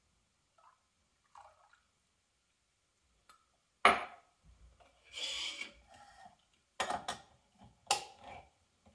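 Milk poured quietly from a glass measuring cup into a bowl, then a sharp knock about four seconds in as the cup is set down on the counter. A short rubbing noise and a few knocks and clinks of cans and utensils follow near the end.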